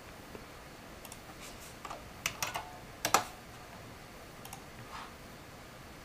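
Scattered sharp computer-mouse clicks, the loudest a few about two and three seconds in, as the fan-speed setting is clicked up in the tuning software. Under them is a faint steady hiss; at 20–30% the graphics card's fan is barely audible.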